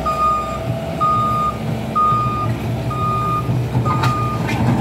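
Bobcat S550 skid steer's backup alarm beeping about once a second as the machine reverses, over its diesel engine running. A few sharp knocks come near the end.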